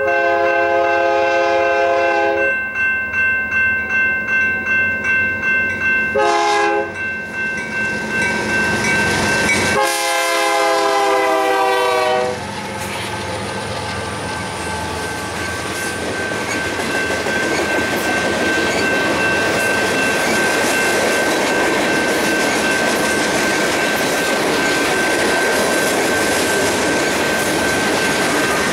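Diesel freight locomotive horn sounding a long blast, a short one and another long one as the train nears and passes, the last blast dropping in pitch as the locomotives go by. After it comes the steady rumble and clickety-clack of freight cars rolling past on the rails.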